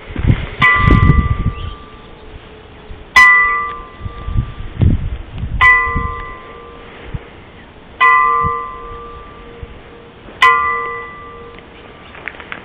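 Church bell tolling, five slow strokes about two and a half seconds apart, each ringing out and fading before the next. There are low rumbles under the first and second strokes.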